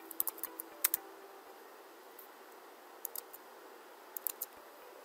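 Computer keyboard and mouse clicking: short clusters of sharp clicks near the start, about three seconds in and again about four seconds in, over faint room hiss.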